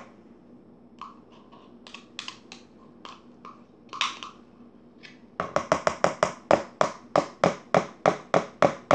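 A plastic spoon scraping and clicking against a plastic measuring cup, knocking shaving cream out of it. About five seconds in it breaks into sharp, quick taps, about four a second.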